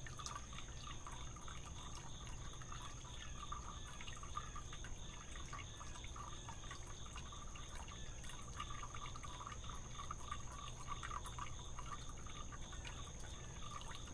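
Outdoor insect chorus: a steady high-pitched insect drone, with many short repeated chirps lower down.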